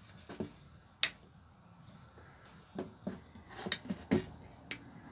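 Scattered light clicks and taps, about seven in all, the sharpest about a second in. They come from a thin metal tool and a rubber fuel hose knocking against the plastic rear handle and fuel-tank opening of a Stavr chainsaw as the hose is worked out through it.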